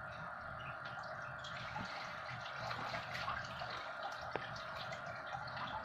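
Faint small ticks and crackles of 12-volt test leads touching the coil pins of a 5-pin cooling-fan relay and sparking, with one sharper tick about four seconds in. The relay gives no click, the sign of a faulty coil side. A steady hiss lies underneath.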